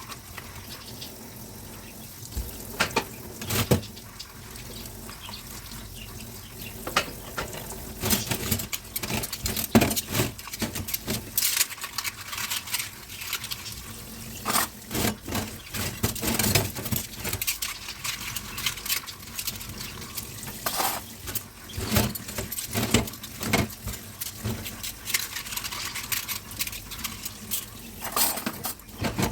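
Dishes and utensils clinking and knocking against each other in a kitchen sink during hand washing, many short sharp clatters over a steady hiss of running water.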